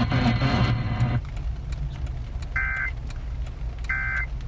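Radio audio cuts off about a second in, leaving a low steady rumble. A car's electronic warning chime then sounds twice, a short tone about every second and a half.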